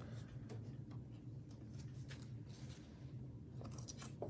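Soft, faint clicks and light swishes of football trading cards being handled and flipped through by hand, over a low steady hum.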